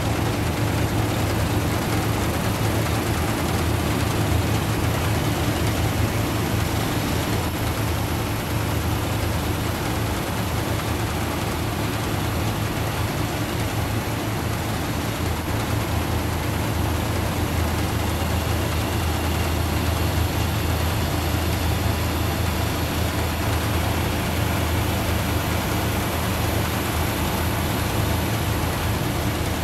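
Tomato harvester running steadily: a low engine hum under a constant rush of machinery noise.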